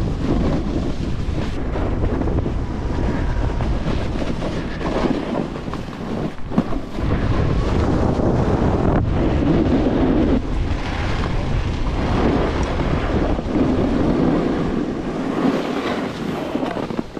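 Wind rushing over the microphone of a camera riding down a slope on a snowboarder, mixed with the snowboard's edges scraping and hissing over cut-up, tracked snow through the turns.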